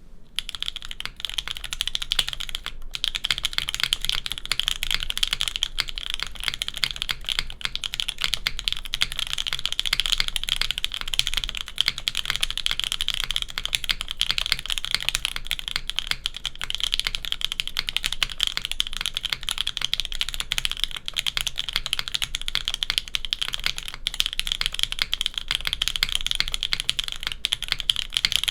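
Steady, fast typing on a Chimera65 gasket-mount 65% custom mechanical keyboard with JWK Popus switches on an FR4 plate. It gives a deep, full, gasket-style keystroke sound, with one brief pause about three seconds in.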